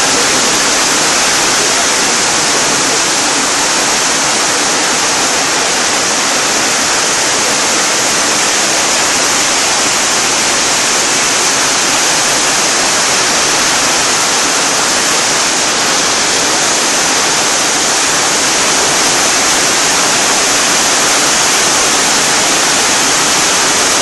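Heavy tropical rainstorm over rainforest: a steady, dense hiss of rain pouring down.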